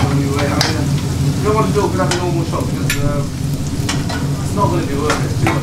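Curry sizzling in pans on gas burners while a chef stirs it, the metal spoon clinking against the pans several times, over a steady low hum.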